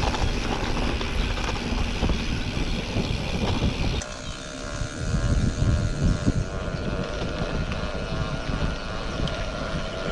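Mountain bike rolling fast down a muddy dirt track: wind rushing over the microphone with the rumble and rattle of the bike and tyres on the rough ground. The sound changes abruptly about four seconds in.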